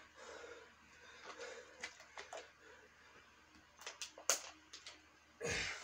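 A water bottle being handled and drunk from, with sharp clicks and knocks, the loudest about four seconds in. A louder burst of noise comes shortly before the end.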